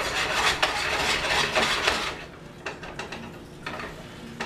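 Metal skillet set back down on the stovetop burner: a sudden scrape and clatter of pan on stove lasting about two seconds, then a few light clicks and knocks.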